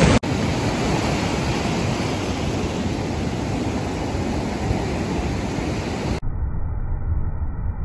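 Small surf breaking and washing up the sand in a steady rush of noise. About six seconds in the sound cuts to a duller, more muffled stretch of the same surf.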